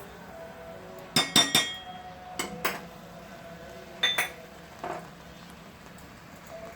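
A spoon clinking against a cooking pan while stirring a simmering sugar syrup, about eight sharp clinks in small groups.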